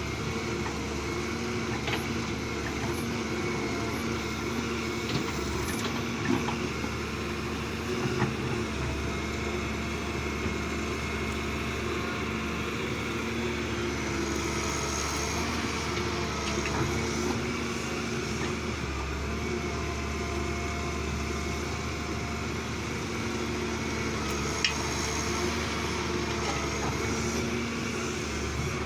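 Diesel engine of heavy earthmoving machinery running steadily, with a few short knocks now and then.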